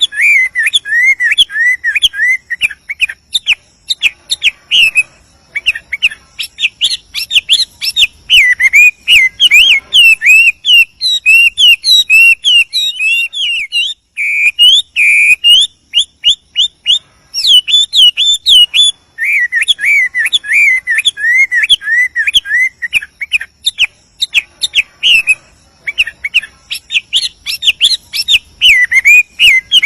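Chinese hwamei (melodious laughingthrush) singing a loud, continuous song of varied whistled phrases, with runs of quick repeated wavy notes and only brief pauses.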